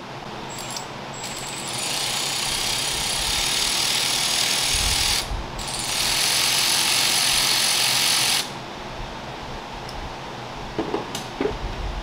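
Powered ratchet spinning a 13 mm fastener off the fuel rail stud: a steady whir of about six seconds, broken by a short pause in the middle. A few light clicks of the socket being handled follow near the end.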